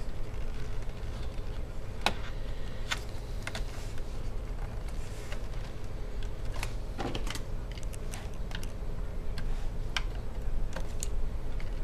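Scattered light plastic clicks and taps from handling a laptop keyboard: its keys rattle under the fingers as the ribbon cable is worked into the motherboard connector, with a screwdriver tip ticking on the connector near the end.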